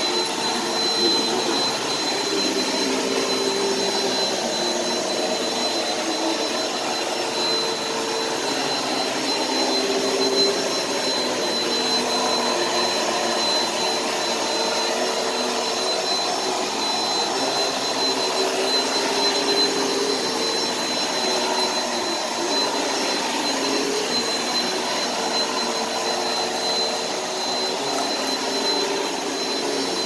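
Bissell PowerForce Helix Turbo upright vacuum cleaner running steadily while pushed over carpet: a continuous motor rush with a thin, steady high whine on top.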